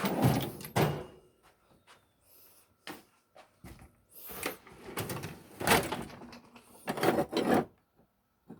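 Steel sockets and tools clattering and clinking as a toolbox is rummaged through, with irregular knocks and a drawer being handled.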